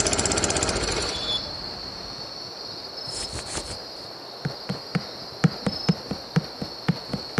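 A small lawnmower engine running with a rapid beat, fading out within the first second and a half and leaving a steady chorus of crickets. From about four and a half seconds in come quick, regular footsteps, about four a second.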